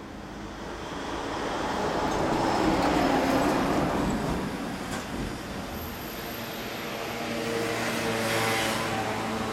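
Passing road traffic: one vehicle goes by, loudest about three seconds in, then another approaches near the end with a steady engine note.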